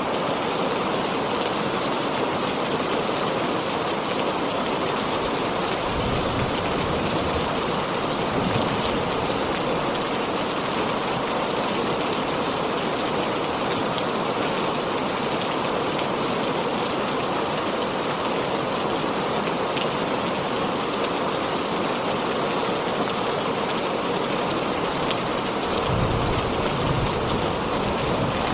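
Heavy rain falling steadily, with two brief low rumbles, one about six seconds in and one near the end.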